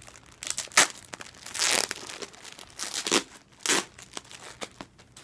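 Packaging around a new hoodie being crinkled and torn open by hand, in irregular rustling bursts.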